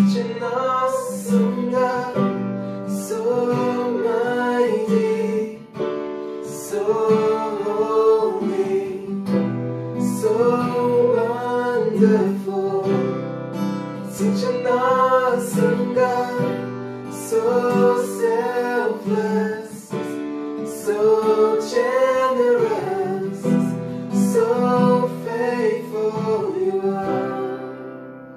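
Worship song performed live: women's voices singing together over a strummed acoustic guitar and an electronic keyboard. The music eases down near the end.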